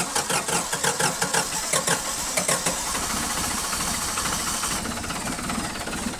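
Ford 445D tractor's three-cylinder 201 cu in naturally aspirated diesel on a cold start with the thermostart held on: the gear-reduction starter cranks it with a fast, even chug of compression strokes, and about two and a half seconds in the engine catches and runs steadily.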